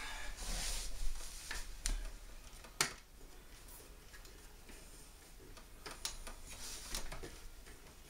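Hands fitting a replacement sustain board into an open plasma TV chassis and fastening its grounding screw: scraping and rustling with a few sharp metallic clicks, the loudest about three seconds in, then a short scrape near the end.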